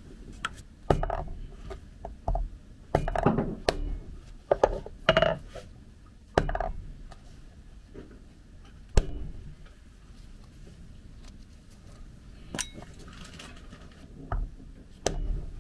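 Acorns being cracked on a wooden cutting board: irregular sharp knocks with a short clink as a hard object strikes the shells against the wood, in small clusters, with a single loud knock about nine seconds in.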